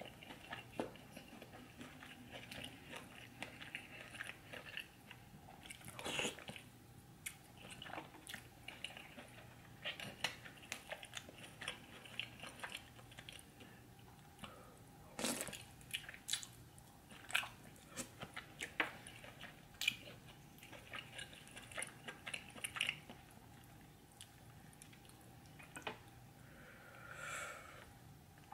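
Eating sounds of a seafood boil in butter sauce: chewing and biting, with wet smacks and sharp clicks scattered irregularly throughout.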